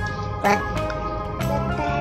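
Background music with held notes and a regular beat.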